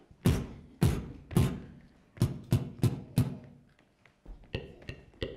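Beatboxed vocal percussion: a series of sharp mouth-made hits. Three come evenly about half a second apart, then a quicker group of four, then fainter clicks near the end.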